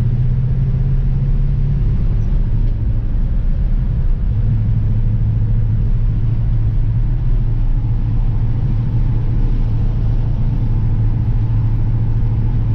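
Car engine and road noise heard from inside the cabin while cruising steadily, a low, even drone. The engine note eases briefly about two to four seconds in, then steadies again.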